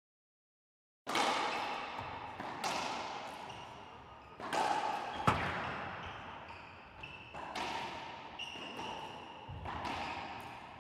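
Racquetball rally: the hard rubber ball cracks off racquets and the court walls, each hit ringing in the enclosed court, about every one to two seconds. The hits start about a second in.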